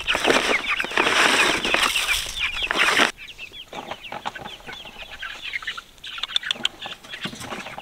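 A flock of young chickens clucking and chirping with many short calls, loud for about three seconds, then dropping suddenly to quieter chirps.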